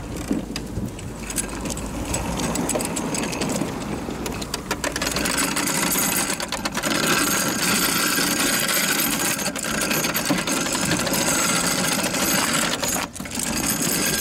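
Honda HRX217 push mower with a Checkmate segmented striping roller being rolled and turned on asphalt: a steady rattling, rolling noise from the roller segments and wheels on the rough pavement, getting louder about five seconds in.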